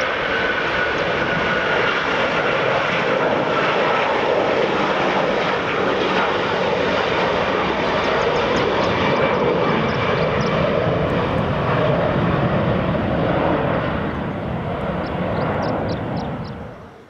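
Airliner engines running loud and steady, with a high whine that slowly falls in pitch over the first few seconds. The sound cuts off suddenly just before the end.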